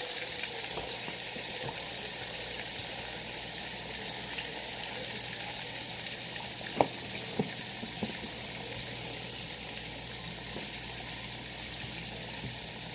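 Chicken wings frying in a pan of hot grease: a steady sizzle, with a few short sharp clicks a little past halfway.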